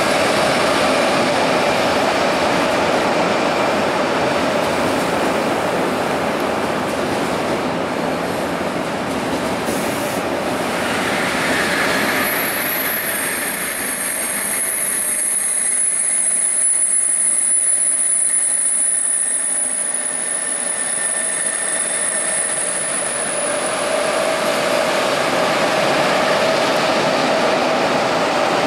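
Railway train running along the track with a steady loud rushing noise; from about twelve seconds in, a high-pitched squeal sounds for about ten seconds.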